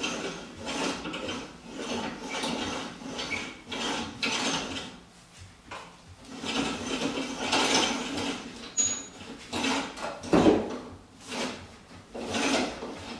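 Rope-and-pulley ceiling hoist lowering a cedar-strip kayak: the rope runs through the pulleys in a series of pulls, with creaks and rubbing between them. A single sharp knock about ten seconds in is the loudest sound.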